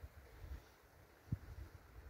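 Wind buffeting the microphone in low, irregular puffs, with one sharper low thump about a second and a half in.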